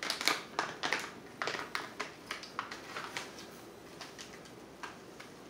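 Crinkling and rustling of a small plastic packet of jerky cure being opened and handled: a quick run of sharp crackles that thin out after about three seconds, with a single click near the end.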